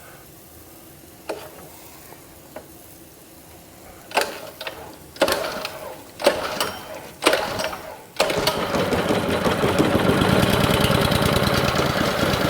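Small gasoline engine on a hot water pressure washer being started cold with the choke on: four pulls about a second apart, then it catches about eight seconds in and runs steadily.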